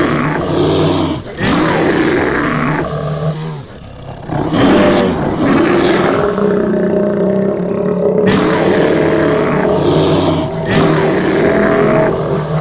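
Monster roar sound effects for a giant ape and a tyrannosaur squaring off: several long, rough roars one after another, with a quieter gap about four seconds in.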